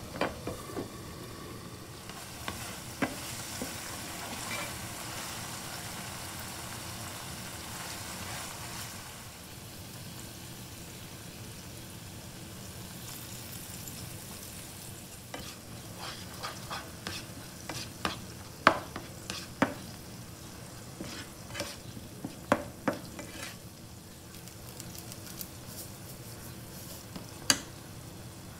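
Liver pieces frying in oil in a nonstick frying pan with a steady sizzle. From about halfway there is a run of sharp clicks and scrapes as a metal grater and a plastic spatula work against the pan.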